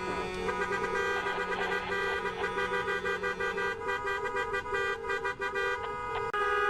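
Car and truck horns honking, several held long and overlapping.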